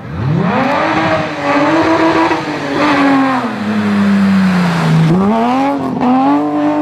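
Rally car engine revving hard: its pitch climbs steeply at the start and holds high, drops away about four to five seconds in, then climbs again and holds high.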